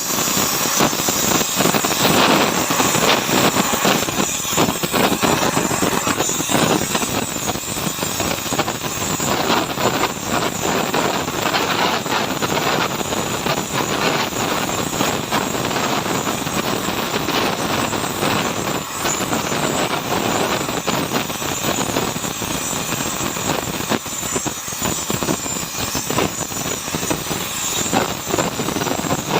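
Steady, dense crackling hiss of metalwork on an aluminium alloy wheel, running on without pause.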